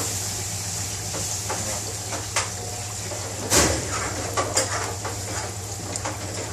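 Breadcrumb-coated chicken pieces deep-frying in hot oil in a fryer basket: a steady sizzle with scattered crackles over a low hum. A single sharper click or knock comes about three and a half seconds in.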